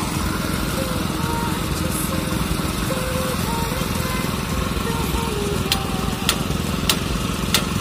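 Small petrol engine of a portable rail drilling machine running steadily under load while it bores through the rail. In the last two seconds there are four sharp clicks, a little over half a second apart.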